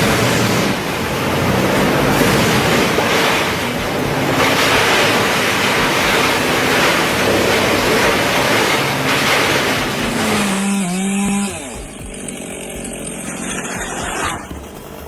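Chainsaw running at high revs. Its engine pitch dips and rises briefly about eleven seconds in, then the sound drops to a lower level.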